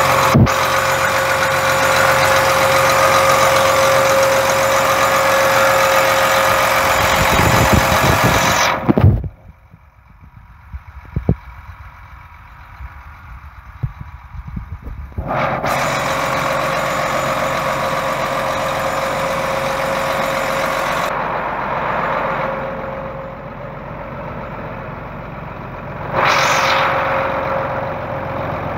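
John Deere tractor's diesel engine idling up close, with a steady whine over the running. About nine seconds in the sound drops to a muffled low with a few clicks for around six seconds, then the engine returns. It eases off for a few seconds and comes back louder near the end.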